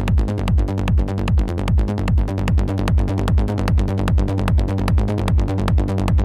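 Electronic trance music with a steady kick drum, about two beats a second, under sustained synth tones.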